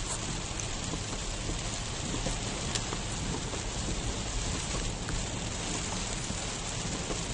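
Steady road and tyre noise inside a moving car's cabin, with a few faint ticks.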